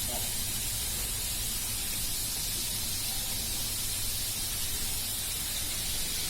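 Fish frying in hot oil, a steady sizzle.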